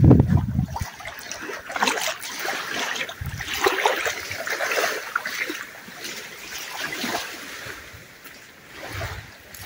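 Small waves splashing and slapping in irregular bursts, with wind buffeting the microphone in low gusts; the loudest gust comes right at the start.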